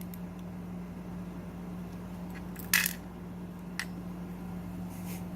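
Small metal lock parts clinking: one sharp metallic clink with a brief ring about three seconds in, then a lighter click a second later.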